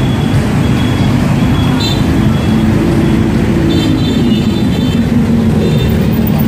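Dense motorbike and scooter traffic passing close by on a city street: a steady mix of many small engines running, with a few short high beeps.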